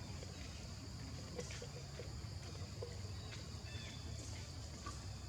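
Steady high insect chirring over a low rumble, with a few faint ticks and a short chirp about four seconds in.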